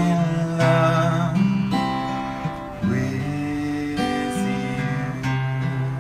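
Acoustic guitar strummed, with a man singing a held, wavering last note over it that ends about a second in; the guitar then goes on alone, changing chord about once a second.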